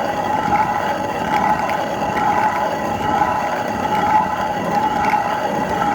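Old stone grinder milling wheat into flour: a steady, unbroken grinding noise with a constant whine running through it.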